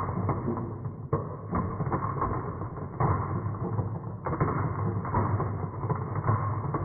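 Marbles rolling and clattering down a toy marble run track: a continuous rolling rumble full of small clicks, with a few sharper knocks about a second in, about three seconds in and past four seconds in.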